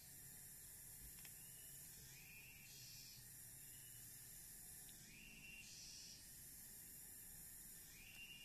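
Near silence: faint outdoor ambience, with a short rising call repeating about every three seconds over high hissing that comes and goes.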